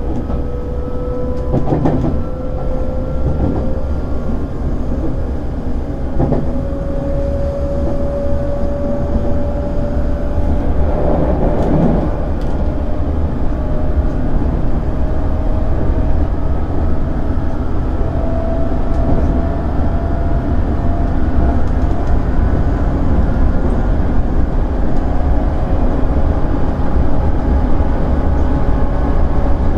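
JR 211 series 5000 electric multiple unit under way: a low running rumble with a whine that slowly rises in pitch as the train gathers speed, and a few scattered knocks from the wheels on the track.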